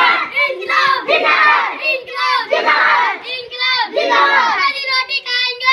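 A group of children shouting together in short repeated bursts, many high voices overlapping.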